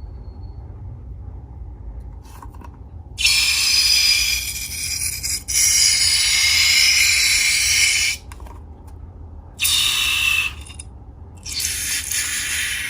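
A hissing, rustling noise in four bursts of one to three seconds each, starting about three seconds in, with quieter gaps between them.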